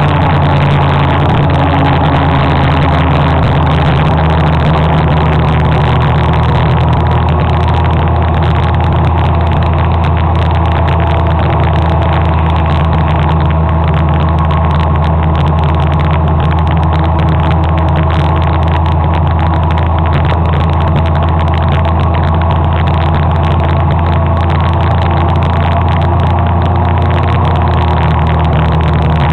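Motor scooter engine running at a steady cruising speed, heard from on board: a loud, constant low drone with little change in pitch.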